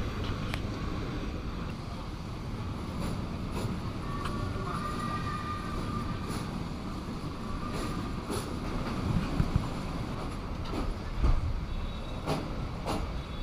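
Passenger train running on the North Borneo Railway, crossing a steel truss bridge: a steady rumble of wheels on rails with scattered clicks and knocks from the track, and a faint wheel squeal a few seconds in.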